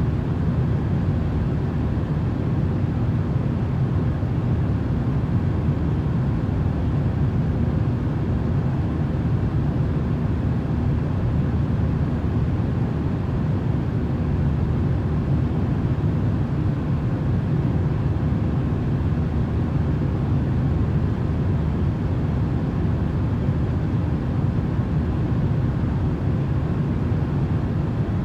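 Steady, unchanging low rumbling noise played as sleep sound, heaviest in the bass and thinning toward the highs.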